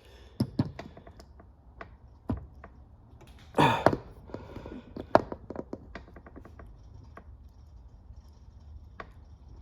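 Old Channellock slip-joint pliers clamping a penny and pressed hard against a table edge: scattered sharp clicks and knocks of metal, with a louder burst about three and a half seconds in and a quick run of fine clicks a little later.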